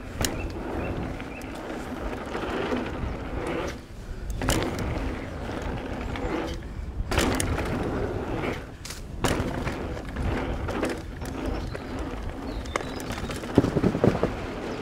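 Specialized Enduro mountain bike riding fast down a dirt freeride trail: tyres rumbling over the ground and wind on the camera microphone, with sharp knocks and rattles from the bike on bumps and landings. The loudest impacts come about three-quarters of a second apart near the end.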